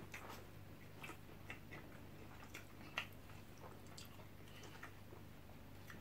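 Faint eating sounds: scattered soft clicks of chewing and of cutlery against the food, one a little louder about three seconds in.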